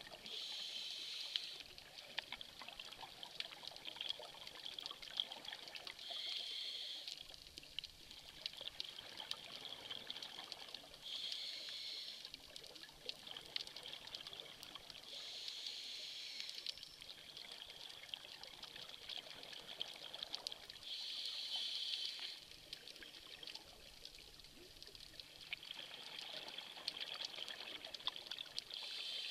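Underwater scuba regulator exhalations: a burst of bubbling about every five seconds as the diver breathes out, over a steady faint crackle of clicks in the water.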